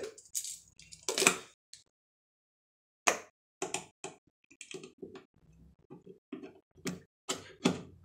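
Plastic GFCI wall plate being fitted over the outlet and a screwdriver driving its mounting screw: irregular short clicks and taps, with one early on, a pause, then a run of them from about three seconds in.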